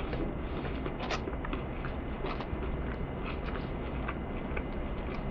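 A person chewing a bite of a crispy breaded spicy chicken sandwich: small, irregular crunching clicks over a steady low hum.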